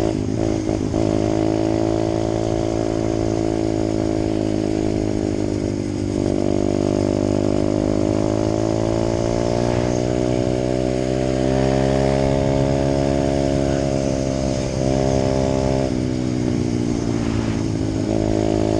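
Apollo 125cc four-stroke dirt bike engine running while being ridden. The revs rise and fall with the throttle, sagging about six seconds in, climbing again, and easing off near the end.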